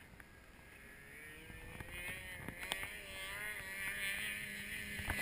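Ski-Doo MXZ 600 snowmobile engine approaching across the snow, growing steadily louder, its pitch wavering as the throttle changes.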